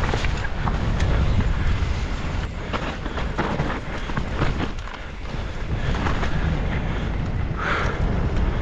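Wind buffeting the microphone over the rumble of a mountain bike descending a dirt trail at speed, with frequent knocks and rattles as it hits roots and rocks.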